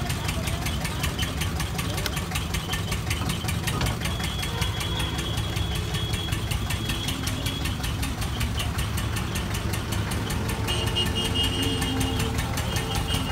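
An engine running steadily with a fast, even knocking beat and a low hum, and faint voices in the background.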